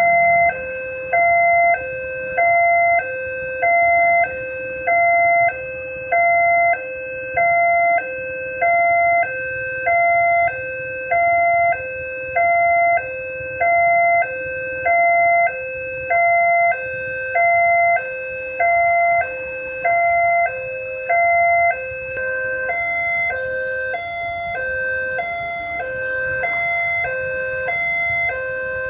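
Railway level-crossing warning alarm: an electronic two-tone signal alternating evenly between a lower and a higher pitch, about one tone per second. From about two-thirds of the way in, a broader rumble and hiss join it.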